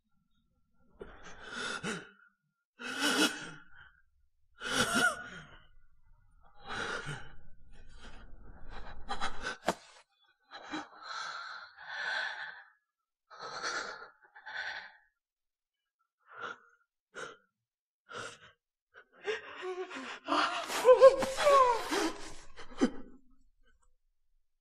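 Injured people gasping and breathing hard in ragged, separate breaths, one every second or two. Near the end comes a louder, wavering pained cry.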